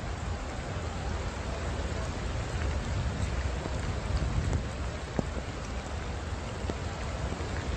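Steady rain falling, an even hiss with a constant low rumble underneath and a few sharp drop ticks.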